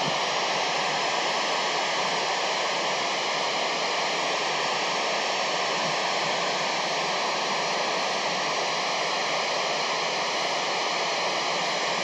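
Steady hiss of FM static from a Kenwood handheld 2-metre amateur radio receiver, its squelch open with no voice coming down from the International Space Station.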